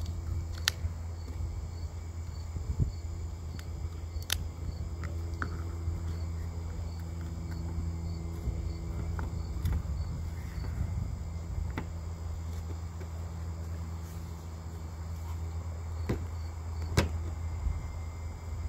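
A few sharp clicks and knocks from handling the wooden base box of a model hit-and-miss engine: a battery pressed into its holder, the box closed and set down on a glass table, the loudest near the end. Crickets chirp steadily in the background.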